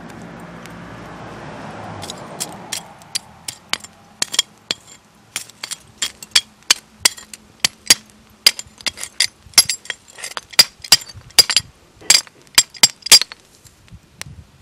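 Metal pliers poking and raking through charcoal, ash, broken roof tile and glass, making irregular sharp clinks and clicks, two to four a second, after a rushing noise that stops about two seconds in.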